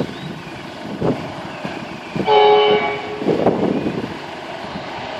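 Horn of the approaching East Coast Main Line train: one short steady blast about two seconds in, lasting under a second.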